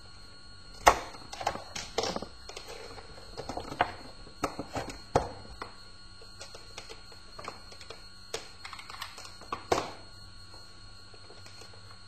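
Scattered clicks and knocks of a laptop power adapter's cable and plug and a screwdriver being handled on a wooden desk. The loudest knock is about a second in and another comes near ten seconds. A faint steady high whine runs underneath.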